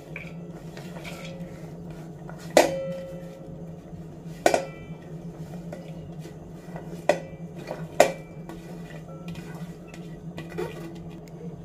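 Chopped vegetables tipped from a ceramic plate into a stainless steel pot, with about four sharp clinks as the plate knocks against the pot; the first two ring on briefly.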